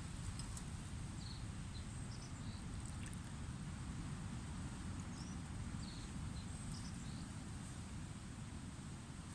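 Outdoor ambience: a steady low rumble with a faint high hiss, and small birds giving scattered short, high chirps.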